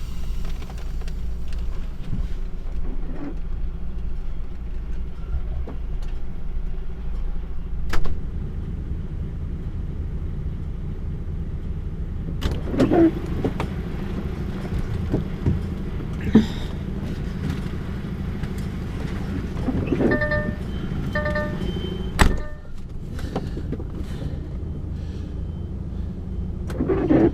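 Diesel engine of an HGV tractor unit running low while reversing under a trailer to couple up, with occasional sharp knocks and clunks as the fifth wheel meets the trailer. The trailer is left too high, so the fifth wheel misses the kingpin and strikes the trailer front. Two short pairs of electronic beeps come a little past two-thirds of the way in.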